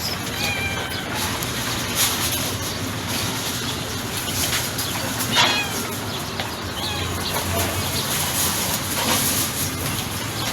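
A few short, high, soft mews from a white cat, scattered over steady background noise.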